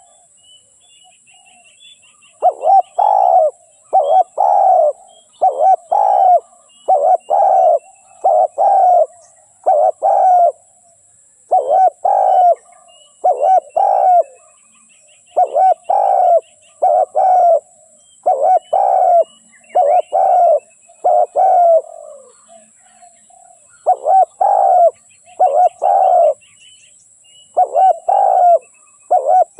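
Spotted dove cooing: runs of short coo notes repeated over and over, broken by pauses of a second or two, with faint high chirps of small birds and a thin steady hiss behind.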